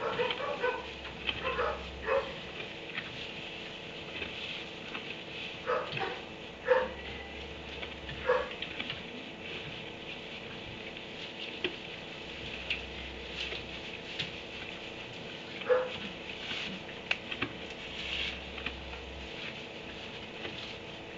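A dog in a kennel barking in short single barks: a quick cluster in the first two seconds, then isolated barks every second or two and one more after a long pause.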